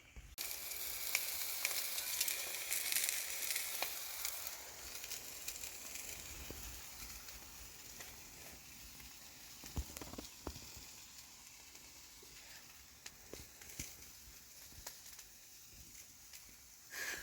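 Something sizzling on a hot cooking surface, with small crackles. It starts suddenly and slowly dies down over several seconds.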